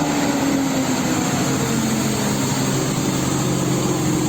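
Steady engine drone with a slowly sliding pitch, running evenly throughout.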